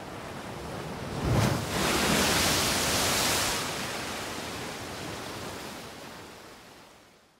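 Rushing noise effect, like surf, at the very end of a hip-hop track. A hit comes about a second and a half in, the rush is loudest for the next couple of seconds, then it fades out to nothing.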